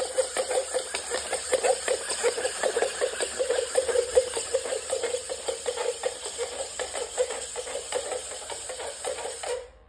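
A WAVEGO quadruped robot dog walking: its leg servos whirring and its feet tapping on a laminate floor in a rapid, uneven patter, over a steady hiss that stops just before the end.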